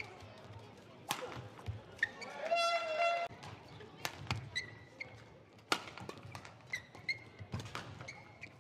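Badminton rally: sharp cracks of rackets striking the shuttlecock about a second apart, with short squeaks of players' shoes on the court floor.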